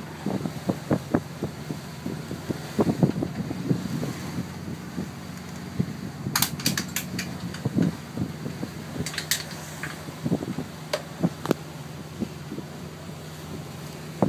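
Motorboat under way: the steady drone of its engine with wind buffeting the microphone, frequent soft knocks, and two brief clusters of sharp clicks about six and nine seconds in.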